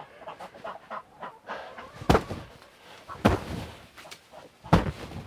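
Three sharp thumps about a second and a half apart, from the greenhouse's plastic sheeting being struck from inside to knock off accumulated snow. Chickens or ducks make small sounds in the greenhouse between the thumps.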